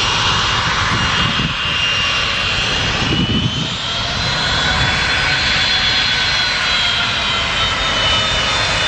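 Jet airliner engines running loud: a continuous rush with several high turbine whine tones drifting slowly in pitch.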